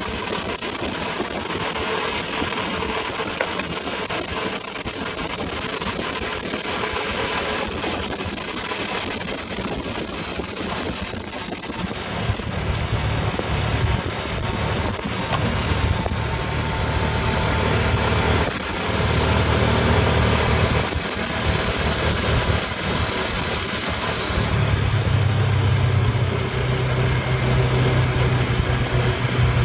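ATV engine running on a trail ride, with a rough, noisy rumble. About twelve seconds in the engine note grows stronger and louder, easing off briefly twice before picking up again.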